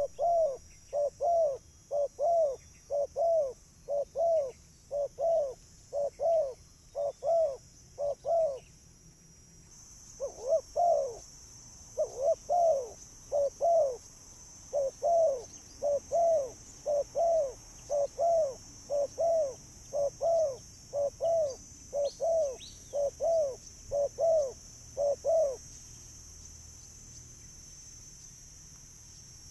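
Spotted dove cooing in a lure recording: short, arched, low notes repeated about twice a second in a long run, a break of about a second, then another long run that stops about 25 seconds in. A steady high hiss runs underneath.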